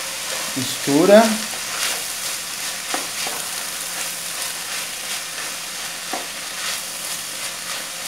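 Ground beef with onion, garlic and olives sizzling as it fries in a speckled enamel pot, now nearly dry after cooking in its own liquid. A wooden spoon stirs it briskly, scraping through the mince with a few light knocks against the pot.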